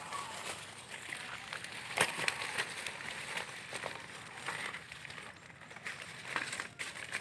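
Banana leaves being handled and shaped, rustling and crinkling irregularly, with a sharp snap about two seconds in.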